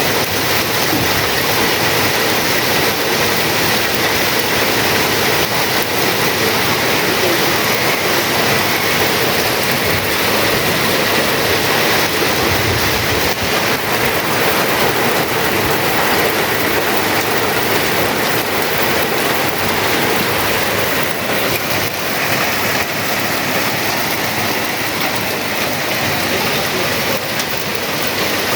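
Steady loud rushing noise with a faint, thin high tone held under it.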